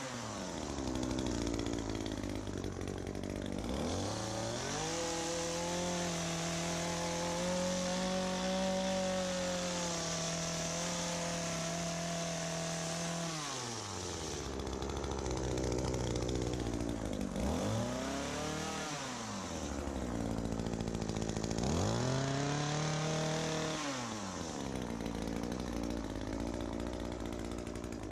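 ECHO PAS2620 two-stroke power head driving an articulating hedge trimmer attachment through a hedge. The engine revs up and is held at high speed for about ten seconds, then drops back and revs up again in several shorter bursts as the throttle is worked.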